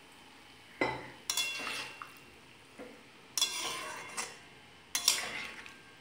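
Metal spatula scraping and stirring moong dal and vegetables in a steel kadai, in several separate strokes.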